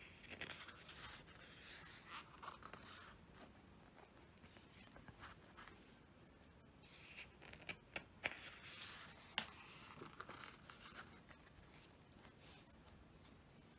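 Faint rustling and sliding of a thick photobook's paper pages being turned and handled, with a few light taps or clicks about eight and nine and a half seconds in.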